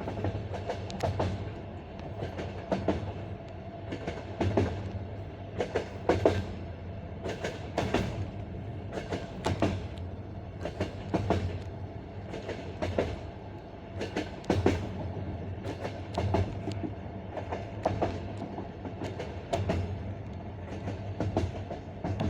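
Railway carriage wheels clattering over the rail joints of old jointed (non-welded) track: the classic clickety-clack, a cluster of knocks roughly every 1.7 seconds over a steady rolling rumble, heard from aboard the moving train.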